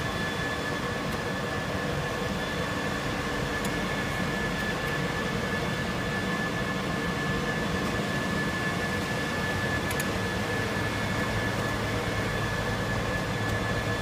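Steady noise of a running rubber extrusion and microwave vulcanization line: an even hum and hiss with a constant high whine over it.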